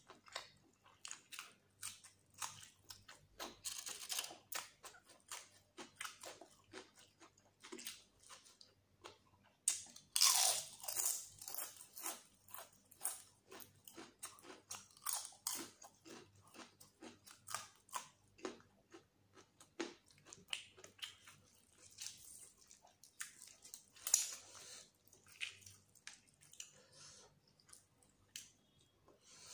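Close-miked mouth sounds of a person eating curry and rice by hand: wet chewing and smacking in quick, irregular clicks, with a louder, crisp crunching bite about ten seconds in.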